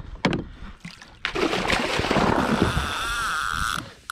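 Water splashing and sloshing with a few sharp knocks, as a freshly landed small yellowfin tuna thrashes at the side of the kayak. A busy stretch of splashing runs through the middle, with a steady high tone joining it midway, before it cuts off near the end.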